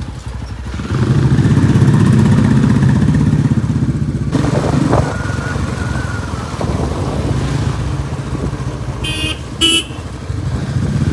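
Motorcycle engine running steadily on the move, with two short horn beeps about nine seconds in.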